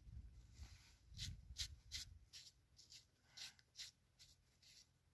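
Faint rustling and scraping of a gloved hand pulling a field mushroom out of the soil among grass: a series of short, soft scratches, fewer toward the end.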